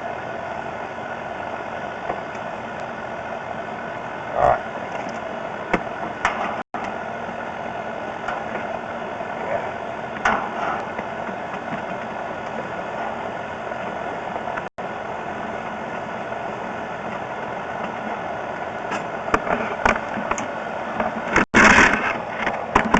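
Steady engine-like mechanical hum, with a few short knocks and a louder clatter near the end.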